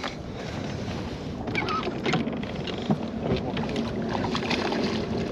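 Water splashing and lapping against the side of a small fishing boat in the wind, with a few short splashes and knocks about two seconds in as a hooked fish is brought alongside to be netted.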